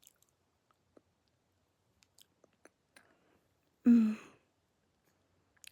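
Faint, sticky mouth and lip clicks from eating a gooey sour candy slime, broken about four seconds in by one short voiced sound from the eater, a brief vocal reaction rather than words.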